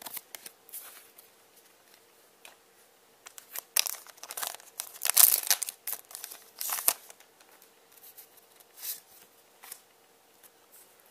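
A Cardfight!! Vanguard booster pack being torn open and its wrapper crinkled: a string of short tearing, rustling noises, loudest around the middle, with a few lighter rustles near the end.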